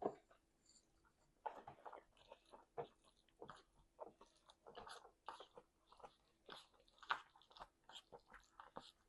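A person chewing and biting food close to the microphone: a run of quick, irregular mouth smacks and clicks, the loudest a sharp bite right at the start.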